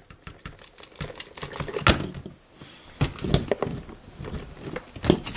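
Plastic Jurassic World dinosaur toy figures being handled and pushed against each other: an irregular run of clicks, clacks and knocks, with the loudest about two, three and five seconds in.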